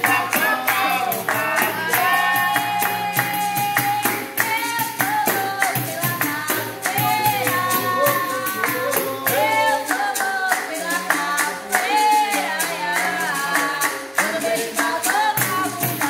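Capoeira music: voices singing a capoeira song over a steady beat of hand claps, a pandeiro and a berimbau.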